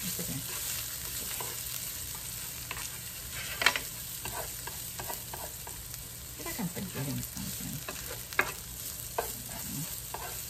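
Sliced onions sizzling in a nonstick frying pan over medium heat as a plastic spoon stirs them, with a few sharp clacks of the spoon against the pan. The loudest clack comes about three and a half seconds in.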